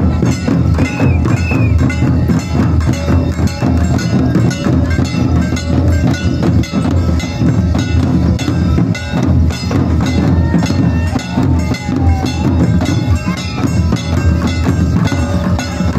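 Live folk drumming on double-headed barrel drums, a fast, dense beat that runs without a break, with sharp clacking and bell-like clinks mixed in.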